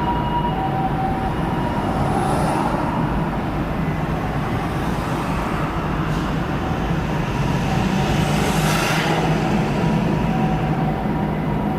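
Japanese ambulance two-tone siren alternating between a high and a low note over steady road traffic and engine noise. The siren is clear at first, fades away, and comes back faintly near the end. A brief rushing noise sounds about nine seconds in.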